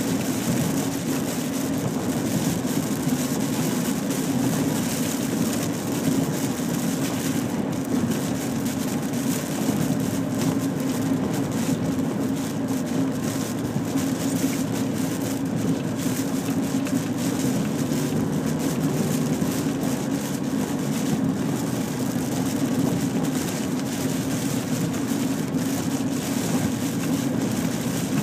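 Steady in-car road noise while driving on a rain-soaked highway in heavy rain: a low drone with hiss from tyres and spray on the wet road and rain on the car.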